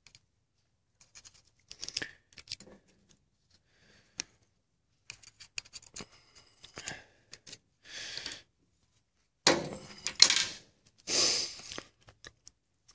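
Small metal clicks and clinks of Detroit Series 60 electronic unit injector parts being handled on a steel diamond-plate bench as the plunger is drawn out of the injector body and set down. A few louder scraping, rustling bursts come in the second half.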